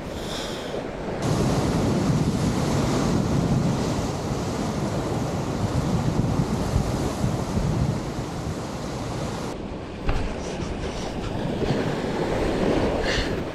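Ocean surf washing against a rock shelf, with wind buffeting the microphone. A small knock about ten seconds in.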